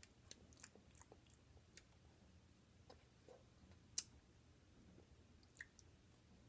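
Faint wet mouth clicks and lip smacks from licking and sucking a blue raspberry Push Pop lollipop, a handful of small clicks spread through, the loudest about four seconds in.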